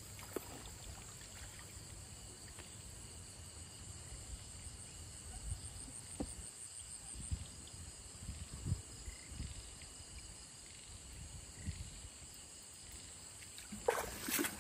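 Night insects, crickets among them, trilling steadily in several high steady tones, with occasional soft low thuds of rubber boots stepping in shallow mud. Louder footfalls start about a second before the end.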